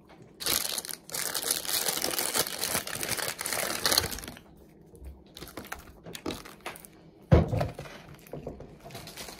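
Plastic packaging crinkling as it is handled and worked open, for about four seconds. It is followed by a few light clicks and a single thump about seven seconds in.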